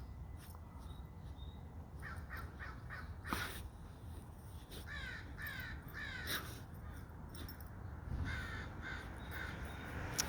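Crows cawing in several bouts of repeated harsh caws, calling in alarm at a large bird raiding their nest and eating their young.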